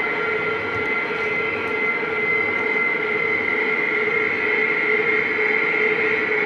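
A steady rushing drone with a few held tones over it, an ambient sound-design soundtrack for the dance.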